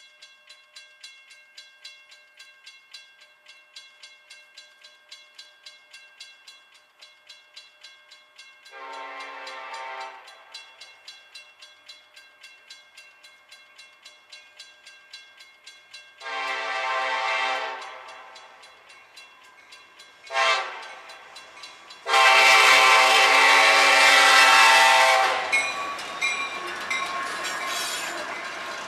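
Railroad crossing bells ringing steadily while an oncoming CSX freight train led by an SD70ACe diesel sounds its horn in the grade-crossing pattern: long, long, short, long, with the last blast the loudest. After the horn stops, the locomotives pass close by with a heavy rumble of engines and wheels.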